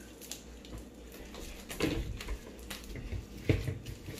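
Slime being handled and kneaded by hand, giving scattered faint clicks and sticky pops, with a couple of duller knocks about two and three and a half seconds in.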